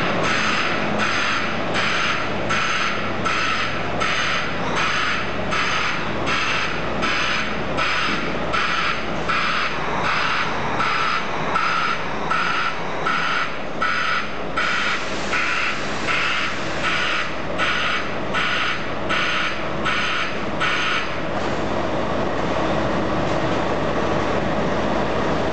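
Volvo truck's diesel engine idling, with a regular pulsing hiss about twice a second over the steady hum that stops about 21 seconds in.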